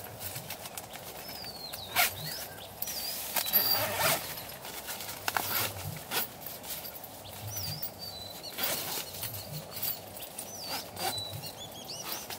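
Tent door zipper pulled along the door panel in short, uneven pulls, with rustling of the tent's nylon fabric.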